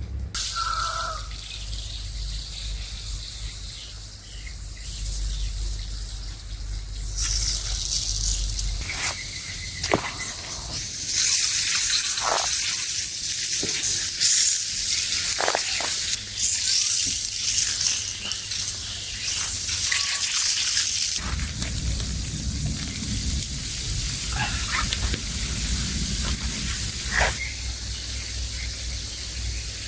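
Water running with a steady hiss that grows louder about seven seconds in.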